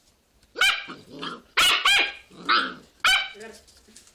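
A dog barking: about four sharp barks, with softer, lower grumbling calls between them.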